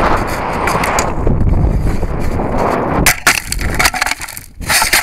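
Air rushing over the onboard camera microphone as the rocket's payload section comes down under parachute, then about three seconds in a thud as it hits the plowed ground, followed by knocks and crackling as it tips over in the soil clods.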